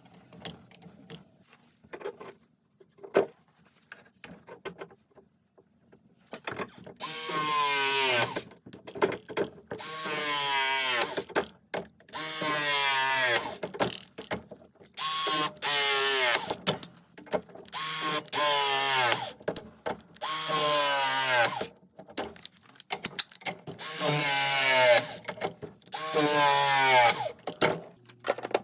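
A handheld power tool's motor running in about eight bursts of a second or two each, its pitch sinking through each burst as it comes under load, after a few scattered light clicks.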